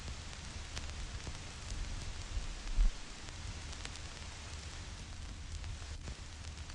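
Vinyl record crackle: a steady surface hiss with scattered pops and clicks from the stylus tracking dust and imperfections in the groove, over a low rumble. A louder low thump comes a little under three seconds in.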